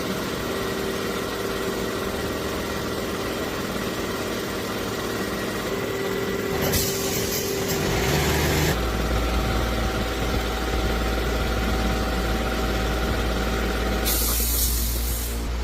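A machine running with a steady hum, broken twice by loud bursts of hissing air: one about seven seconds in lasting about two seconds, another near the end. A deeper hum sets in after the first burst.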